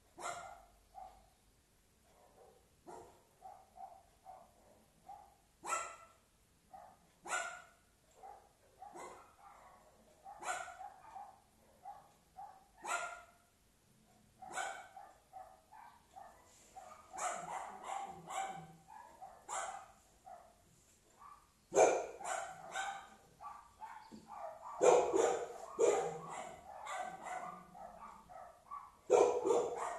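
A dog barking over and over in short, irregular barks, louder in the second half.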